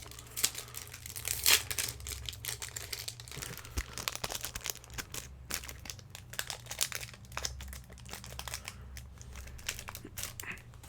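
Foil Pokémon booster pack wrapper crinkling and being torn open, a dense run of irregular crackles.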